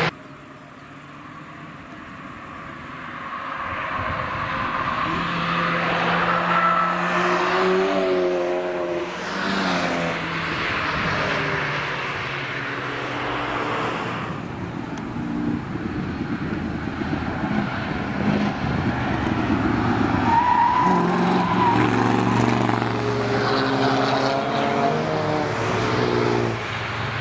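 Several cars driving past one after another through a bend, engines revving up and dropping back at gear changes as they accelerate; it starts quieter and grows louder after a few seconds.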